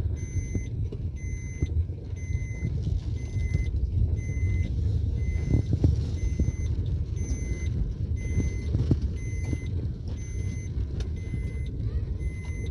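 Maruti Suzuki Baleno heard from inside the cabin, driving slowly over a bumpy dirt ground: a steady engine and tyre rumble with a couple of thumps from the uneven surface. Over it, a dashboard warning chime beeps steadily about every two-thirds of a second.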